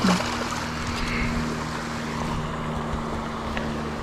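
A bass thrown back into the pond lands with a single sharp splash, over a steady low hum.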